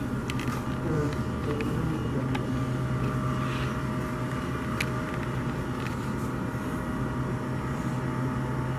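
Steady low hum of a convenience store's cooling equipment, with a thin high tone over it and a few faint clicks.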